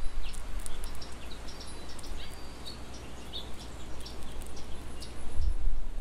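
Outdoor birdsong ambience: small birds giving scattered short, high chirps and calls, over a low rumble that is stronger at the start and again near the end.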